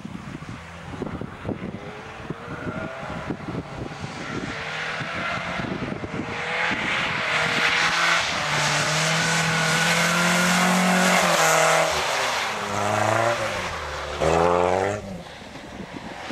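Car engine of a stripped-down Opel Omega revving hard as the car slides on snow and ice, growing louder toward the middle, then falling and rising again in pitch, with a short sharp rev about fourteen seconds in.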